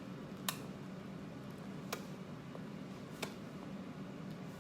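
Three faint, sharp clicks, each a second or more apart, over a steady low room hum.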